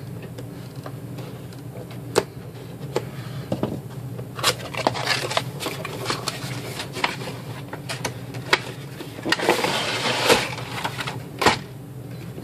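A cardboard craft-kit box being cut open and unpacked: a few sharp snips and clicks from scissors, then cardboard flaps and packaging rustling and knocking as the plastic insert tray is pulled out, busiest near the end with a sharp knock just before it stops.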